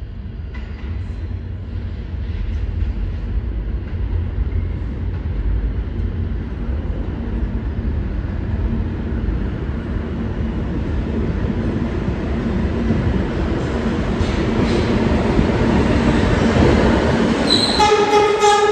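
R160A subway train approaching through the tunnel, its rumble growing steadily louder as it nears the platform. In the last second a steady pitched horn sounds as the train enters the station.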